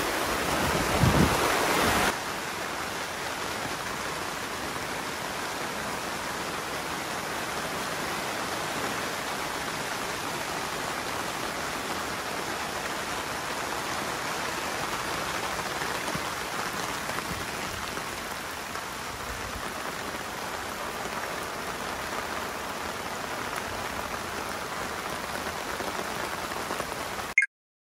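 Heavy rain, a steady dense hiss of a downpour falling on the grass and on the tent and tarp fabric. It is louder for the first two seconds, then stays even until it cuts off suddenly near the end.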